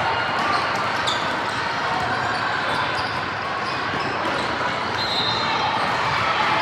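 Youth basketball game in a gym: a basketball bouncing on the court over a steady bed of players' and spectators' voices, with a brief high squeak about five seconds in.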